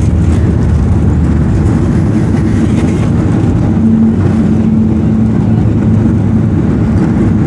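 Cabin rumble of a Boeing 737-800 rolling out on the runway just after touchdown, its CFM56 engines and wheels giving a loud, steady low roar. A steady hum rises out of it about halfway through and fades a couple of seconds later.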